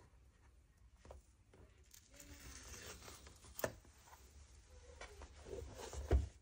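Packaging and boxes being handled during an unboxing: light rustling and scraping, with a sharp click about three and a half seconds in and a louder knock near the end.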